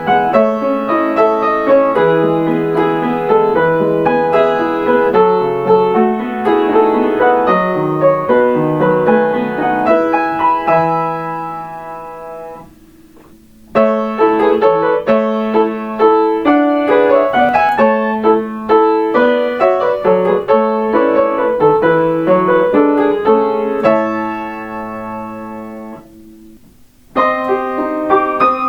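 Solo piano playing Kintetsu limited express on-board chime melodies, transcribed by ear. A long phrase rings out and fades about twelve seconds in, a second phrase ends on a held chord that dies away, and a new phrase starts near the end.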